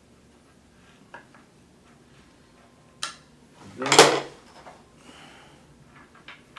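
Handling noise from assembling a bamboo cart rack with an Allen wrench: a few light clicks and a short, louder rustling clatter about four seconds in.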